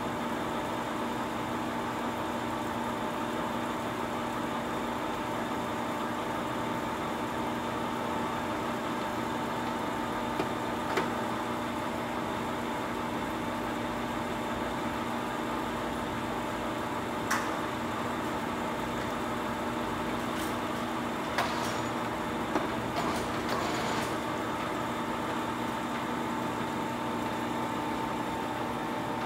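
Poreba TPK-80/3M heavy engine lathe running under power, a steady hum with several fixed tones. A few sharp clicks and knocks come about halfway through as the carriage handwheels and levers are worked.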